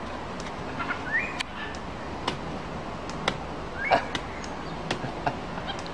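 Capuchin monkey knocking a green fruit against a wooden branch: scattered sharp knocks, about seven in six seconds. A couple of short rising chirps come about a second in and again near four seconds.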